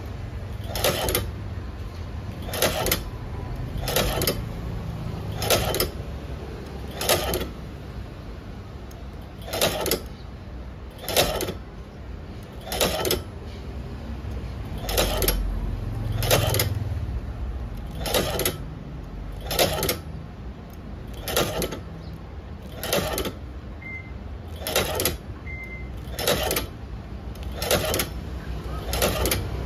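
Shoe-repair sewing machine stitching through a sneaker's rubber sole: one sharp mechanical clack about every second and a half, one per stitch, in a slow, even rhythm.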